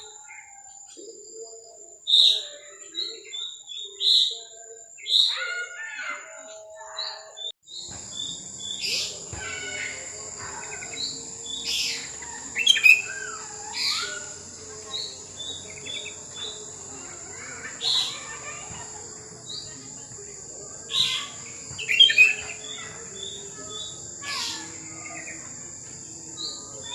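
Wild sooty-headed bulbuls (kutilang) calling: repeated short, bright chirps and quick downward-sweeping notes, over a steady high-pitched whine. Partway through the background noise abruptly rises.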